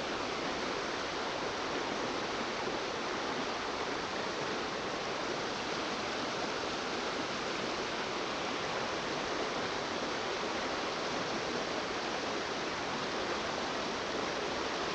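Strong river current rushing steadily, an even, unbroken wash of water.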